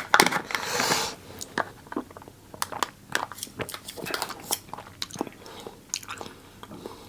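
Slurping tapioca milk tea through a straw for about a second, then chewing the tapioca pearls close to the microphone: a run of short, wet mouth clicks and smacks.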